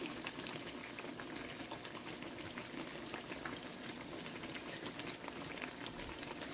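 Battered eggplant slices (beguni) deep-frying in hot oil: a steady sizzle with many fine crackles.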